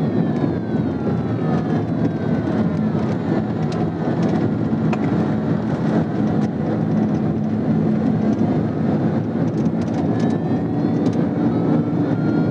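Engine and road noise inside a police patrol car at high speed, around 97 mph, during a pursuit. Behind it, fainter, is the slow rise and fall of a siren's wail.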